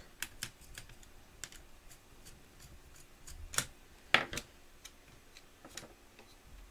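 Scattered light clicks and taps of hands working on an opened laptop's internal parts, with two louder clicks about three and a half and four seconds in.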